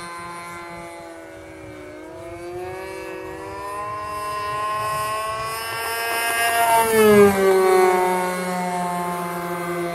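Radio-controlled model airplane's motor and propeller whining overhead. The pitch climbs for several seconds, then drops steeply as the plane passes close about seven seconds in, the loudest moment. A steady lower hum runs underneath.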